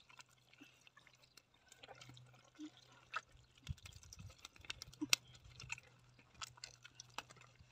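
Gloved hands digging and scooping wet riverbed mud: faint wet squelches with scattered small clicks and crackles of clods and grit, and a few soft low thuds a little before the middle.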